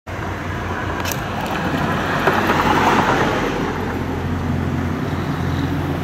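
A motor vehicle's engine running with road noise, heard while riding along a road: a steady low hum under a rushing noise that swells about two to three seconds in.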